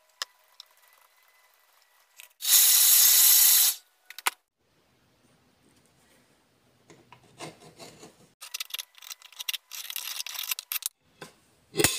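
Hand work on a 6 mm steel plate: a brief loud hiss about two and a half seconds in, then bouts of scraping and rubbing strokes in the second half.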